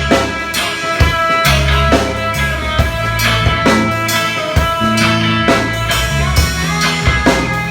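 A band playing instrumental music: drum kit hits over sustained low bass notes that change pitch every second or so, with guitar chords above.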